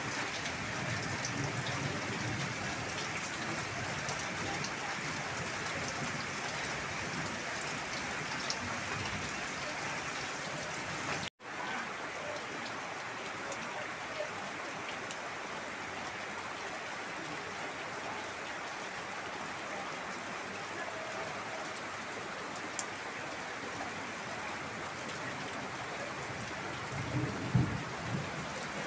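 Heavy rain falling steadily, splashing on wet ground and puddles. The sound drops out for a moment about eleven seconds in, and a short low thump comes near the end.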